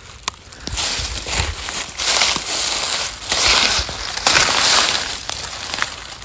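Loud crunching and rustling noise in uneven surges, starting about a second in, after a single sharp click.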